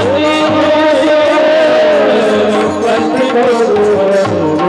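Devotional bhajan singing with accompaniment: a voice draws out one long, wavering note over sustained instrumental tones, while drum and small hand cymbals keep a steady beat.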